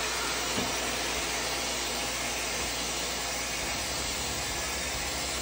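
Harvest Right home freeze dryer's vacuum chamber hissing steadily as air rushes in through the opened release valve. The vacuum is being broken so the door can be opened at the end of a batch.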